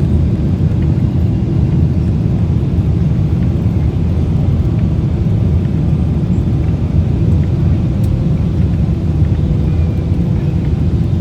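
Steady low rumble of a Boeing 777-300 airliner heard from inside the passenger cabin: engine and airflow noise during the landing approach.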